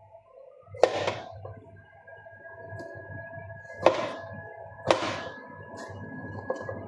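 Three sharp knocks, one about a second in and two more near four and five seconds, each with a short ringing tail, over a low steady hum and faint steady tones.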